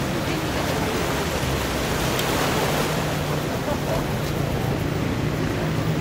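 Sea surf washing onto a beach, a steady rushing noise, with a faint low hum underneath.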